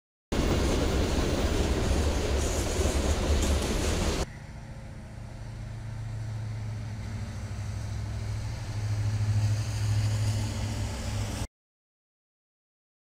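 Diesel freight locomotives passing close by: a loud, noisy rumble for about four seconds, then, after an abrupt change, the steady low drone of a Union Pacific diesel locomotive lash-up approaching and growing louder before the sound cuts off suddenly.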